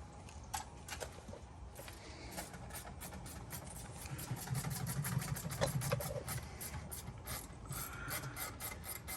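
Rapid, evenly spaced mechanical clicking, several clicks a second, settling into a steady rhythm about two seconds in, with a low hum swelling briefly around the middle.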